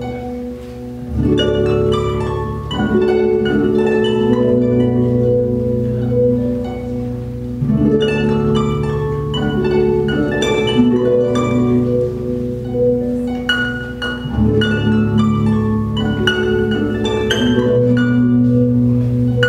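Lyon and Healy concert grand pedal harp, plucked in flowing patterns of notes over sustained low bass notes that shift about every six or seven seconds.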